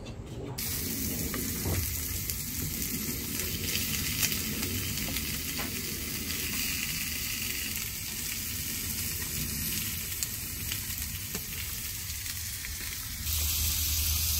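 Pork belly and sausages sizzling on a hot steel grill tray, a steady hiss with scattered sharp pops and clicks. It starts about half a second in and gets louder near the end.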